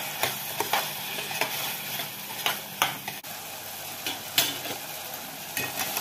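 Metal spoon stirring and scraping a tomato and onion masala in a metal pot over a steady sizzle, with irregular clinks of the spoon against the pot. The tomatoes are cooking down soft in the oil.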